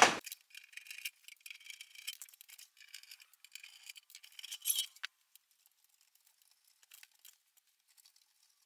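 Hand screwdriver backing screws out of the back of a metal PC case: a run of faint, rapid scraping clicks for about five seconds, ending in a louder scrape. After that come only a few faint taps.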